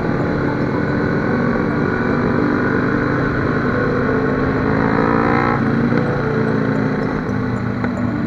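Benelli TNT300 motorcycle's parallel-twin engine running under way. Its pitch climbs for about a second in the middle and then drops suddenly.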